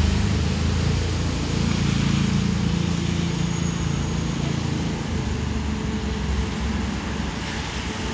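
Diesel train approaching, its engine running with a steady low rumble, with rain falling.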